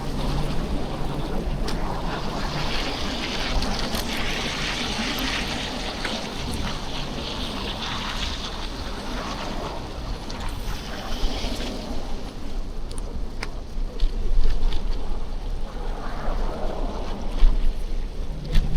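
Wind buffeting the action camera's microphone during a bicycle ride through a snowy city street, over a steady hiss of tyres on slushy pavement and traffic. The hiss swells for several seconds in the first half, as if a vehicle passes through slush, with a few light clicks and knocks.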